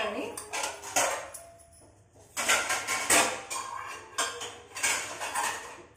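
Stainless steel vessels clanking and clinking as they are set onto a metal wall-mounted dish rack: a series of sharp knocks with a short metallic ring, with a brief lull about two seconds in.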